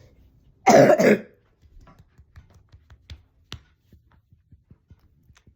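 A boy coughing twice in quick succession, loud and close to the microphone, followed a couple of seconds later by two faint clicks.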